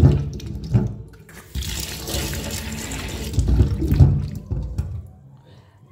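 Cut potato pieces being rinsed by hand in a steel bowl of water in a stainless steel sink: water sloshing and splashing, with tap water running for a couple of seconds in the middle.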